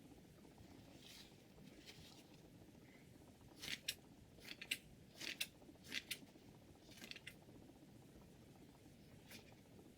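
Scissor blades snipping: a quick run of about a dozen short, sharp snips near the middle, with a few fainter ones before and after.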